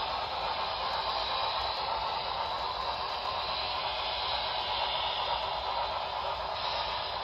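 HO scale model freight train rolling past on its track, a steady hiss-like rushing noise with no distinct clicks.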